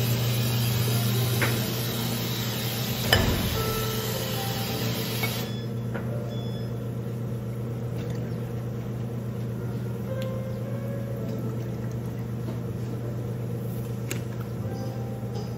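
Milk poured from a plastic jug into a steel milk pitcher, over a steady low hum of café equipment. A sharp clunk comes about three seconds in, and a hiss stops about five seconds in.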